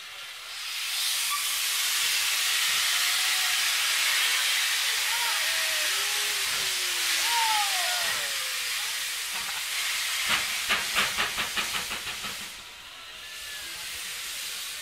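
Steam locomotive starting away: a loud, steady hiss of escaping steam, then near the end a quick run of chuffs, about six a second, that fade as the engine pulls away and the hiss dies down.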